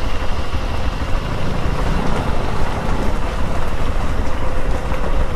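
Motorcycle running steadily while being ridden, with heavy wind buffeting on the microphone as the loudest part.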